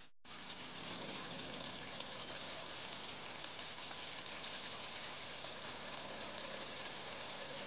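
Pork belly adobo simmering in its sauce in a wok: a steady, fine crackling hiss that starts a moment in after a brief gap.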